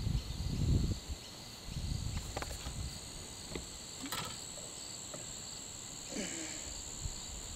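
Steady, high-pitched insect chorus droning without a break. Low knocking and rustling fill the first second, and there is a sharp click about four seconds in.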